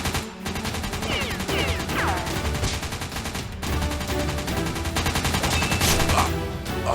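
Rapid automatic gunfire, a dense run of shots with no break, in the style of a video-game gunfight sound effect laid over Nerf blaster action.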